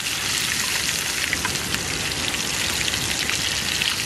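Whole selar (scad) fish frying in hot oil in a small pan: a steady hiss with many scattered crackles and pops.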